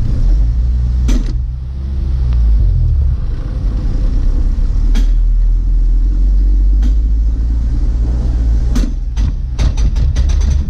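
Jeep Wrangler driving slowly on a dirt trail: a steady low engine and drivetrain rumble, broken by scattered sharp clicks and knocks, with a quick run of them near the end.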